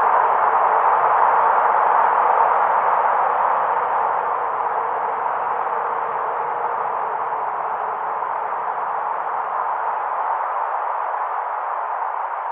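Windy-night ambience: a steady rushing wind noise that slowly fades, its low rumble dropping away near the end.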